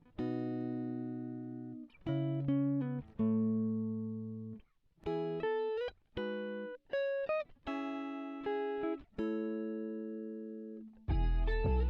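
Background music: a plucked guitar playing a slow melody of separate notes and chords, each left to ring out, with fuller music and deep bass coming in near the end.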